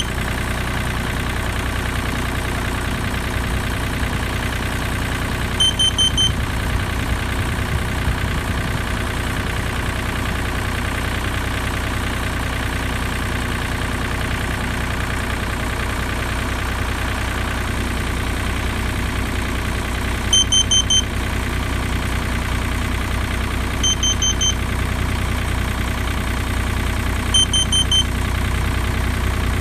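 Carbon monoxide detector sounding its alarm: groups of four quick high-pitched beeps, four times, the four-beep pattern that signals carbon monoxide. Underneath runs a steady low hum like an idling engine.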